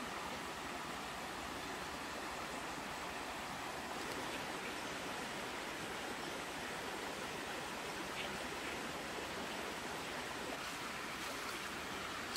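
Steady rushing of a forest stream, with a few faint rustles of dry leaves near the end.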